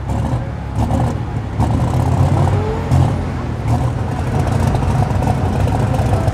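Turbocharged diesel engine of a Limited Super Stock pulling tractor running loudly and steadily.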